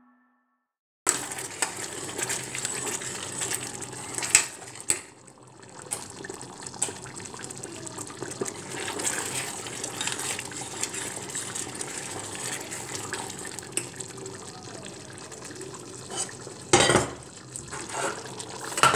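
Kitchen sounds: pots and utensils clinking and clattering over a steady hiss, starting abruptly after a second of silence, with a sharp clink about four seconds in and a louder clatter near the end.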